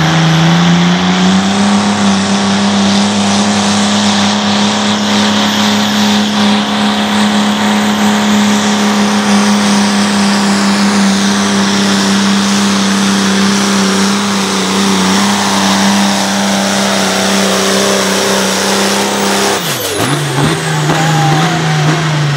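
Turbocharged diesel engine of a competition pulling tractor at full throttle under load, with the turbo whistling over it. The engine pitch rises slightly about a second in, holds steady and high, then drops abruptly about twenty seconds in and settles at lower revs.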